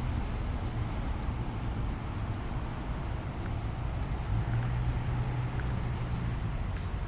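Commuter train's steady low rumble with a low hum, the hum growing stronger about four and a half seconds in.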